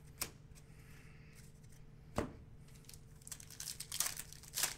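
A basketball card pack's wrapper being torn open and crinkled. A couple of single sharp snaps come first, then a dense crackle over the last second and a half.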